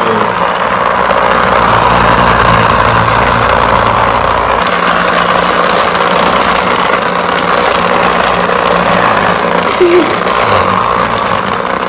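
Small battery-powered motor of a Hasbro Bed Bugs game running steadily, shaking the plastic bed and the bug pieces on it. Its low note shifts about four and a half seconds in.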